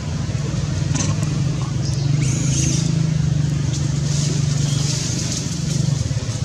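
Steady low drone of a running engine, with a few faint high chirps about two seconds in.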